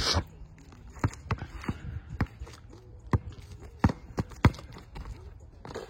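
A basketball bouncing and players' shoes on the court: a string of irregular sharp thuds, the loudest at the very start.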